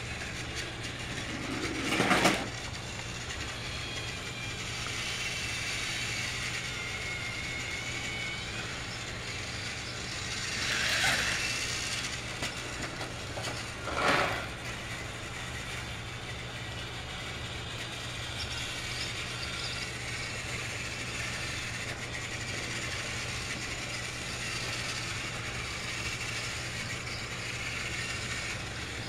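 Battery-powered TrackMaster toy trains running on plastic track: a steady motor whir and track rattle, growing briefly louder three times as a train passes close, about two, eleven and fourteen seconds in.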